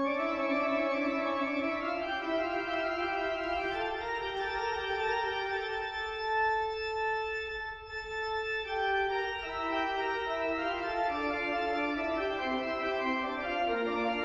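Large pipe organ playing held chords that step slowly from one to the next, then moves into quicker-changing notes about nine seconds in.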